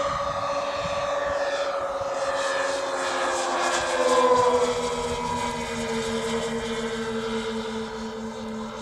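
The two Saito FG-19R3 three-cylinder radial engines of a large radio-controlled B-25 model fly past, turning three-blade propellers. The engine note is loudest about four seconds in, then drops in pitch as the plane passes and fades away.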